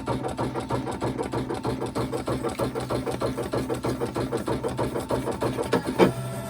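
Electronic cutting machine, a Brother ScanNCut, running its cut on cardstock: a steady motor hum with a fast, regular ticking as the blade carriage and mat drive move. A sharp knock about six seconds in, after which the motor note turns steadier.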